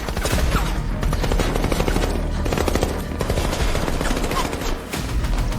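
Rapid automatic gunfire, many shots a second without a break, over dramatic background music.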